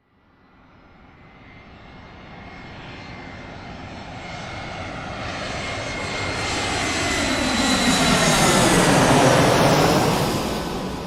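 Airplane flying over: its engine noise fades in from nothing and grows steadily louder to a peak near the end, with a steady high whine that sags slightly in pitch as it passes. The sound then starts to fade away.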